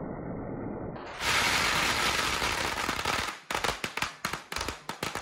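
A string of firecrackers going off. A muffled rumble fills the first second, then a dense, rapid crackle sets in. From about three seconds in it breaks up into separate sharp bangs.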